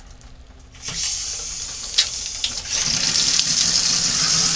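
Water running from a shower faucet as its freshly repaired valve is opened, starting about a second in and growing stronger from about three seconds in, with a single sharp click about two seconds in.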